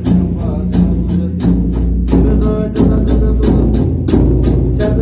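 Background music with a steady beat of about three strokes a second over a deep, sustained bass.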